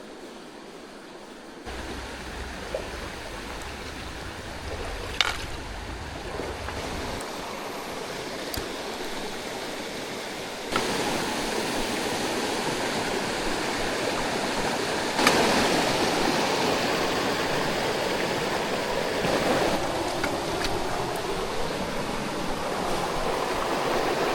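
Mountain stream rushing, a steady wash of water that gets suddenly louder about two seconds in and twice more later on, with a few brief knocks.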